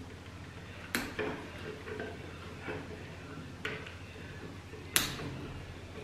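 Wago lever connectors being fitted onto cable cores, with two sharp clicks about a second in and about five seconds in, the second the loudest, and a few softer ticks and rustles of wires and gloved fingers between.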